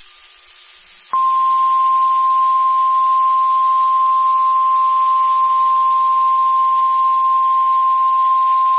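National Weather Service 1050 Hz warning alarm tone, the Emergency Alert System attention signal that heralds a severe thunderstorm warning. It is one steady, unbroken high tone that starts abruptly about a second in, after faint hiss.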